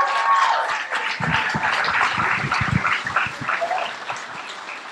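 Audience applauding at the end of a talk, with a few voices cheering at the start. The clapping dies down over the last couple of seconds.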